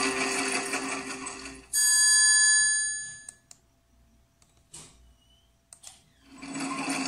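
Background music of a recorded textbook story, then, about two seconds in, a bright bell-like chime sound effect that starts suddenly, rings for about a second and fades. After a near-quiet gap with a few faint clicks, the music starts again near the end.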